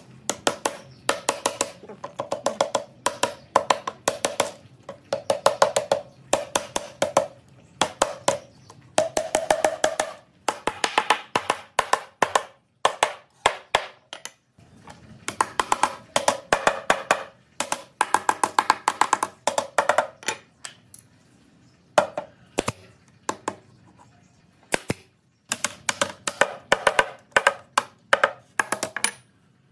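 Claw hammer tapping notched wooden slats into a lattice: quick runs of light, woody taps, several a second, broken by short pauses.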